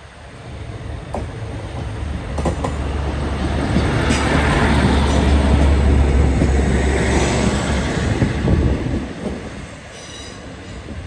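A Class 150 Sprinter diesel multiple unit passes close by. Its underfloor diesel engine drones and its wheels rumble on the rails, growing louder to a peak about halfway through, with some high wheel squeal as it goes by, then fading as it moves away.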